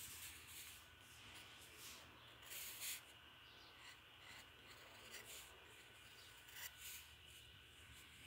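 Faint scratching of a graphite pencil on drawing paper in short, uneven sketching strokes, strongest about two and a half seconds in, over a low steady hum.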